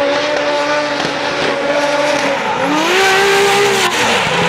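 Drift cars sliding sideways in a tandem run, engines at high revs over the hiss and squeal of spinning tyres. The engine note holds steady, climbs sharply about two and a half seconds in, holds high, then drops away near the end.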